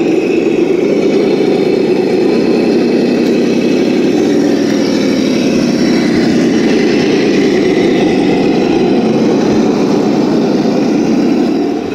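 Electric motor and geared drivetrain of a 1/10-scale Axial SCX10 II Jeep Cherokee RC crawler running steadily as it crawls over loose dirt.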